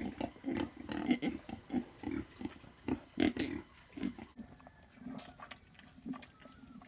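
Domestic pig grunting in a run of short grunts, a few a second, with two louder, harsher grunts about one and three seconds in. The grunting gets quieter and sparser after about four seconds.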